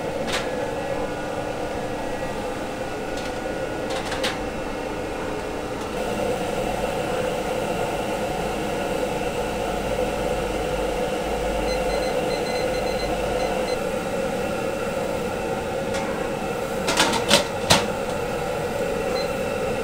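Steady roar of a gas stove burner under a crab steamer wok. Near the end come a few sharp metal clanks as the steamer's metal lid is set on.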